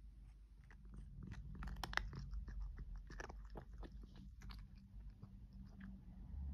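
A cat chewing crunchy cat treats, a quick irregular run of small crunches and clicks that is thickest in the first half and thins out toward the end.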